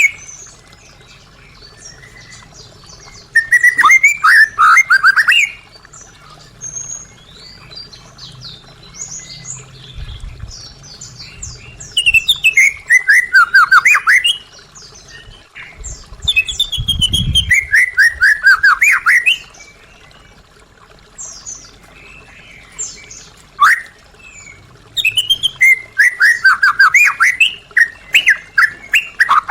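White-rumped shama singing: loud phrases of rapid, falling whistled notes, each lasting a couple of seconds, four times, with softer scattered notes in between.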